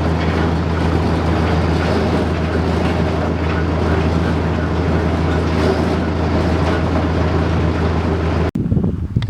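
A vehicle engine running steadily at constant speed, cutting off abruptly about eight and a half seconds in.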